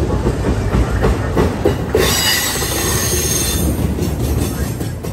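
Freight train of autorack cars rolling past close by: a steady heavy rumble of steel wheels on rail with knocks from the rail joints. About two seconds in, a high wheel squeal rises over it and fades a second or two later.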